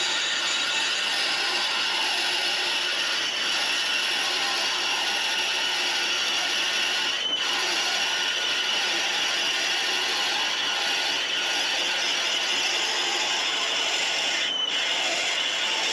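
1911 Hendey cone-head lathe running as a twist drill cuts into a spinning bearing-bronze bushing: a steady high-pitched cutting whine over the machine's mechanical noise, which breaks off briefly twice, about halfway through and near the end.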